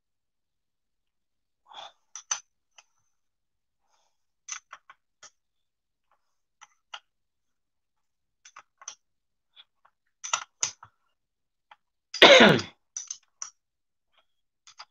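Scattered, irregular light clicks of a wrench working on the brass valve caps of a piston sprayer pump's manifold. A single short, loud cough about twelve seconds in.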